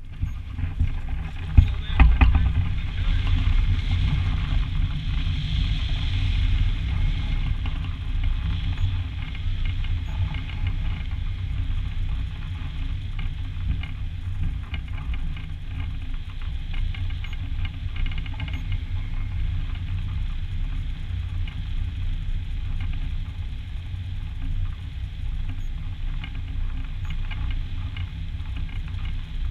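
Wind rushing and buffeting over a hang glider's wing-mounted camera microphone, a steady low rumble through the launch and flight along the cliff. A couple of sharp knocks come about two seconds in.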